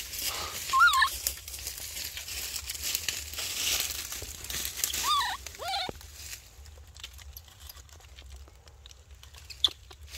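Infant macaque giving short wavering cries: one about a second in, then two falling ones around five to six seconds in. Dry leaf litter rustles and crinkles under it as it crawls, fading after the cries.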